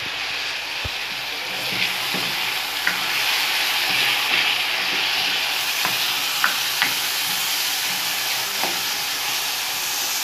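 Beef sizzling steadily as it wet-fries in a saucepan, stirred with a wooden spoon that knocks lightly against the pan several times.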